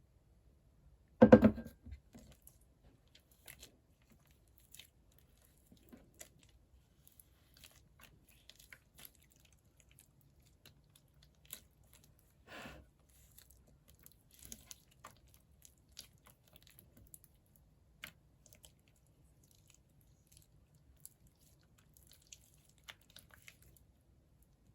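Jiggly slime mixed with clay being handled: scattered small sticky clicks and crackles, with one louder squish about a second in.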